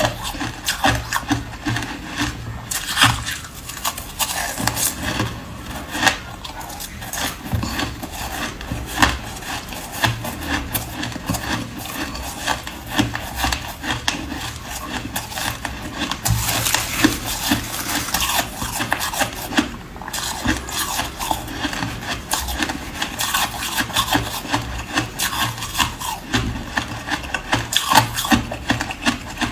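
Close-miked chewing of a mouthful of shaved ice: a continuous gritty crunching and crackling, louder for a few seconds just past the middle.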